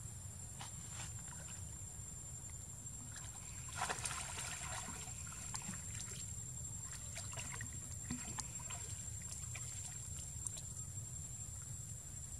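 Macaques swimming in a stone pool, splashing and sloshing the water, with a burst of splashing about four seconds in and lighter splashes and drips after it.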